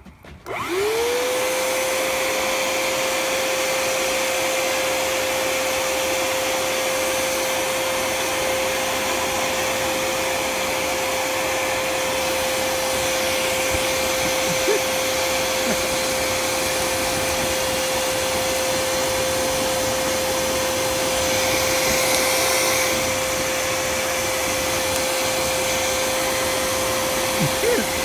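Electric air blower switched on, its motor spinning up within a second to a steady whine over a rush of air, blowing into a fire pit of burning logs and fanning the embers.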